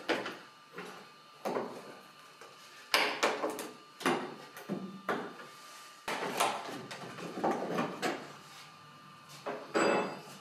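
Old wooden cornice moulding being worked apart at its corner joint with a hand tool: several short bouts of wood scraping and creaking as a glued strip is levered loose.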